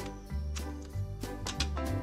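Background music: held notes over a bass line that changes about every half second, with a few faint clicks.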